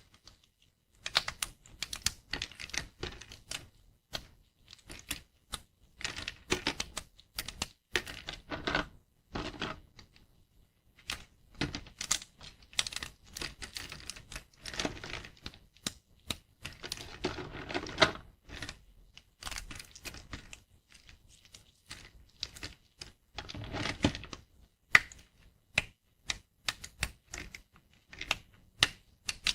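Thin dry soap plates being snapped and broken, giving crisp, crunchy cracks in quick irregular clusters with brief pauses between them.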